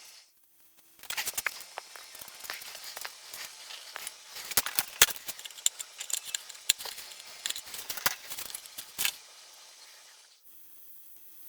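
Hands working on foam and plastic model-airplane parts at a workbench: a busy run of small clicks, taps and scrapes that stops near the end.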